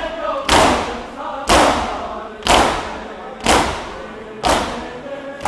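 Large crowd of men doing matam, beating their bare chests in unison: one loud, echoing slap of many hands about once a second. Voices chant a noha faintly between the strikes.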